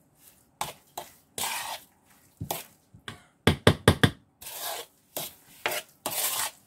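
A spoon stirring and mashing a thick, wet cottage-cheese, egg and sugar mixture in a ceramic bowl, in irregular scraping strokes. A little after three and a half seconds in comes a quick run of about five sharp clicks of the spoon against the bowl.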